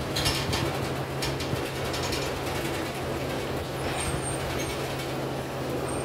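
Interior of a moving city transit bus: a steady low engine hum, with rattling and clicking from the cabin fittings, most busily in the first two seconds and again about four seconds in.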